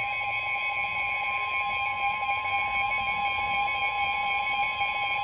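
Emergency Alert System attention signal: a steady two-tone alarm held without a break, announcing a tornado warning.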